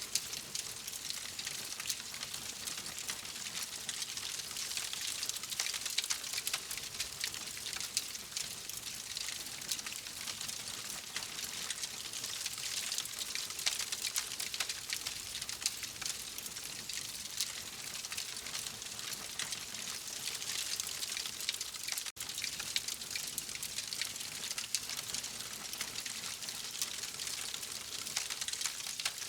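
Wood fire crackling in a fireplace: a steady hiss dense with small pops and snaps, broken by a split-second gap about two-thirds of the way through.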